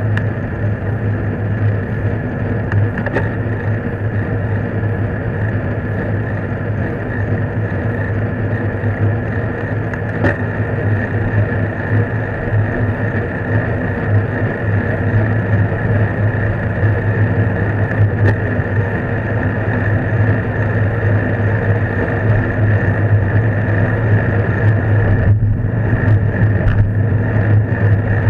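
Steady rumble of wind and road noise on a bicycle-mounted camera's microphone while riding, with a few faint ticks.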